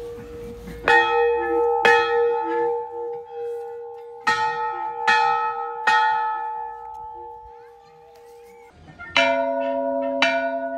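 Large brass temple bell rung by its clapper rope: two strikes about a second apart, a short pause, then three more, each left ringing before it fades out. Near the end a second, lower-pitched brass temple bell is struck twice, about a second apart.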